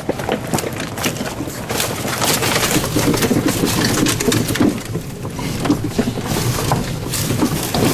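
Polaris Ranger EV, an electric utility vehicle, rolling over rocks and gravel: tyres crunching over stones with many small knocks and rattles from the vehicle.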